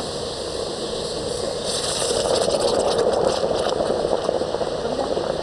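Water in a cedar tub boiling hard around red-hot tuff stones, a steady seething hiss. About two seconds in it swells into a louder hissing, crackling surge that dies back over the next two seconds.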